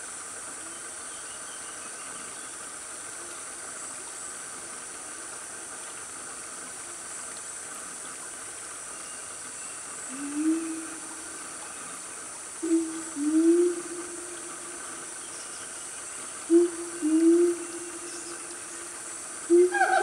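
Siamangs hooting over a steady insect drone: from about halfway in, short calls that rise in pitch and then hold level come again and again, often two close together, growing louder toward the end.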